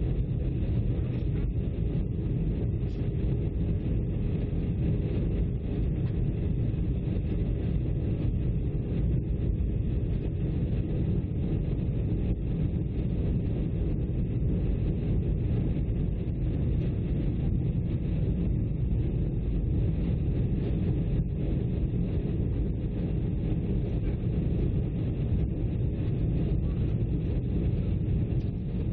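Jet airliner cabin noise during the descent to landing: a deep, steady drone of engines and airflow, heard from a window seat inside the cabin.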